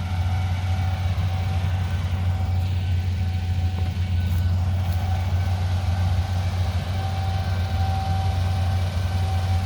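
An engine running steadily at idle: a deep, even hum with a faint steady whine above it.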